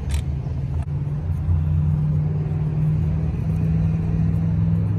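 A motor vehicle's engine running steadily at idle, a low, even hum.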